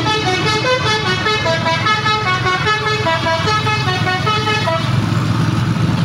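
A Basuri bus's telolet horn playing a rapid tune of short stepped notes, which stops about five seconds in. A low engine rumble runs underneath.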